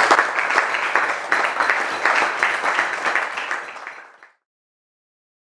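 Audience applauding, fading away and cutting off to silence about four seconds in.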